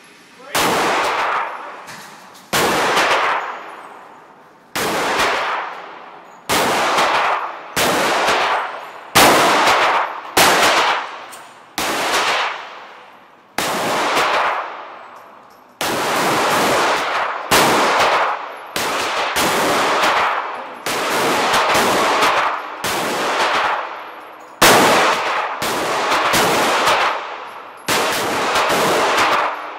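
Handgun shots from several shooters in the lanes of an indoor shooting range, fired irregularly about one every second or two, each ringing out in a long echo off the range walls.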